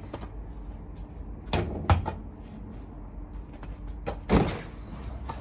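Thuds of a football being played in a goalie game: two sharp knocks about a second and a half and two seconds in, then a heavier, longer thump just past four seconds as the ball is dived for and caught.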